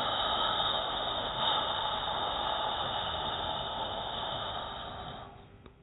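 A long, slow, whispered exhalation voicing the Taoist spleen healing sound, steady and breathy. It fades away near the end.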